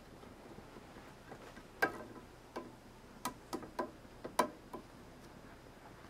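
About seven irregular sharp taps and clicks on the wooden pole of a cat climbing frame as cats play there with a feather wand. The loudest come about two seconds in and again a little past four seconds.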